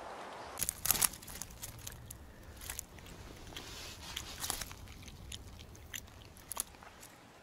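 Crackling and rustling of a mesh keepnet holding bream, with irregular sharp clicks and scrapes as the net and fish are handled, loudest about a second in.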